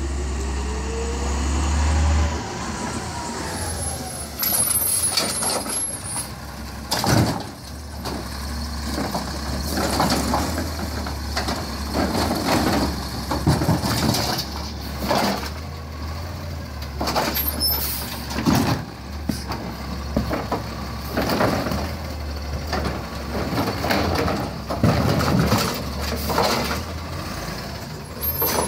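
Automated side-loader garbage truck running. Its engine rises in pitch as it pulls up, then runs steadily while the mechanical arm grabs, lifts and dumps wheeled bins, giving repeated bangs and clatters every second or two.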